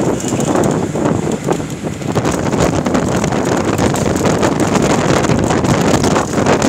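Wind buffeting the camera's microphone while riding in a moving vehicle: a loud, steady, fluttering rush with the vehicle's rumble beneath it.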